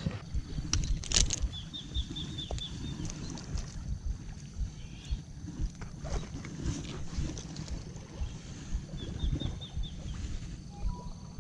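Wind and handling noise on a body-worn camera's microphone, a continuous low rumble with scattered knocks and rustles. A bird calls twice over it, each time a quick run of short high notes, about seven the first time and four or five the second.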